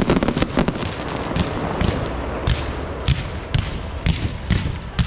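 Aerial fireworks bursting in quick succession: a dense crackle at first, then separate sharp bangs about twice a second.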